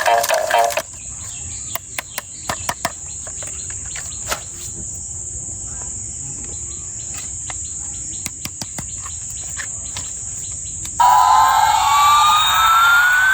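Scattered clicks and taps of plastic toy packaging being handled over a steady high-pitched whine. About eleven seconds in, a loud electronic toy siren starts, its pitch sweeping up and down.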